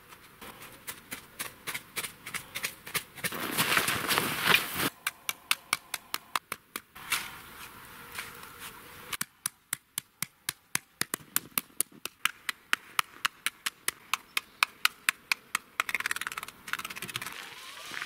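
Rapid crunching in packed snow, about three to four crunches a second, with a longer scraping rush of snow a few seconds in.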